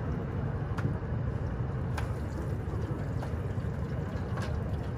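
Steady low rumble of background noise, with a few light clicks as metal ladles and cups are handled.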